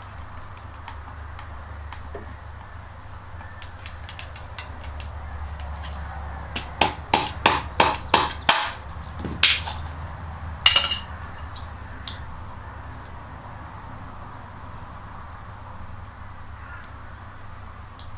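Rubber mallet tapping a flat chisel set along the glued seam of a small plastic toy backpack, cracking the glue so the back panel comes free. There is a quick run of about eight sharp taps, about four a second, then two more a little later, with fainter ticks before them.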